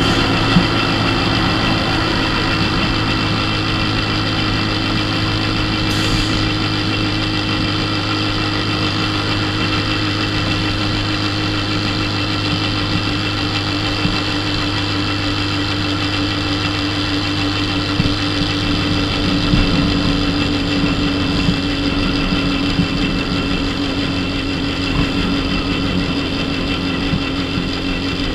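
Dafra Super 50cc moped's small engine running steadily at cruising speed, a constant drone that holds one pitch with no revving or gear changes.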